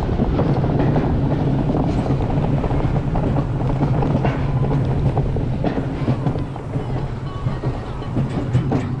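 Mountain coaster cart running along its rail, its wheels giving a steady low rumble with scattered clicks, and wind buffeting the microphone. The rumble eases off somewhat in the last few seconds.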